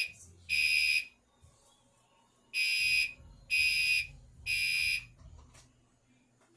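Gentex Commander 3 fire alarm horn sounding the temporal code 3 pattern, loud and buzzy-pitched: the last two half-second blasts of one group of three, a pause of about a second and a half, then a full group of three, after which the horn stops.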